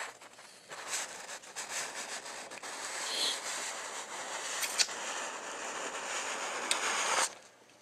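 Paper rustling and rubbing as a hand-held printed sheet is slid and shifted close to the microphone. It stops abruptly near the end.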